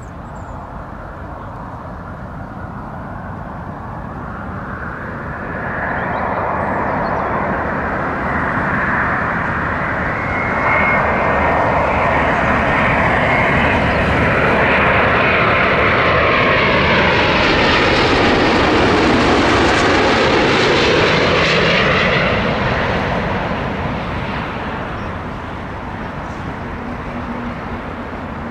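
Airbus A350 airliner with Rolls-Royce Trent XWB turbofans on final approach, gear down. Its jet noise builds over several seconds, is loudest for about ten seconds as it passes close by with a sweeping rush, then fades as it reaches the runway.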